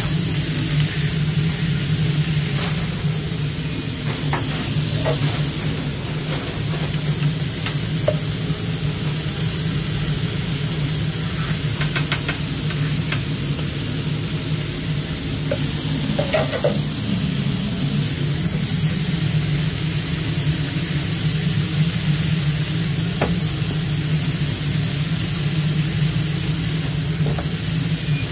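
Burgers sizzling on a hot grill as a steady hiss, over a constant low hum, with a few scattered taps and clicks.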